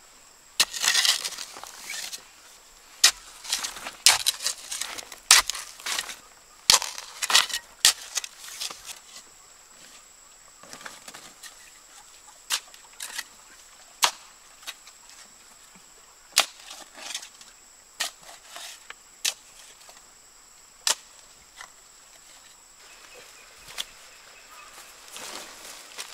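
Sharp, irregular knocks and cracks of a wooden stick striking and prodding loose, lumpy soil around a newly planted banana plant. They come thick and fast for the first several seconds, then as single scattered hits, over a faint steady high whine.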